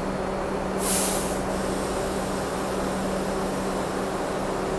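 Steady hum of a standing R62 subway train, with a short burst of air hiss from its brakes about a second in.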